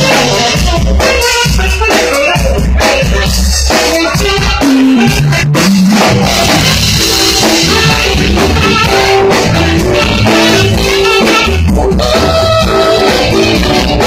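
Live band playing: saxophones over a drum kit, keyboards and electric guitar, with a steady beat and held sax notes.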